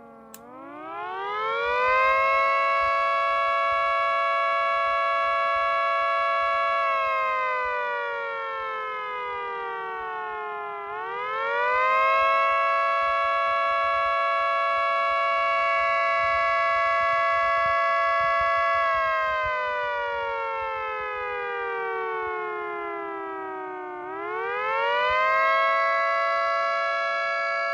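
Miniature 10/12-port dual-tone air raid siren winding up three times. Each time its two chord tones rise quickly to a steady pitch, hold for several seconds, then fall slowly as the rotor coasts down before the next wind-up. Running on 60 Hz power, it spins a little faster than on 50 Hz and sounds much like a 2T22.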